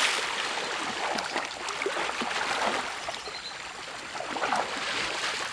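River water splashing and trickling, with many small splashes and drips over a steady wash.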